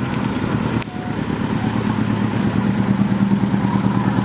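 Mk2 Ford Fiesta's petrol engine running just above idle, unevenly, with a click and a brief dip in revs about a second in as it comes down toward tick over. The car has sat for six months and is struggling to hold an idle on its own.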